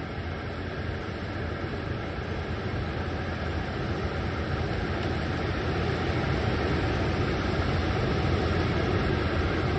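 A launching boat's outboard engines run steadily, a low hum that grows slowly louder, over a constant rush of noise.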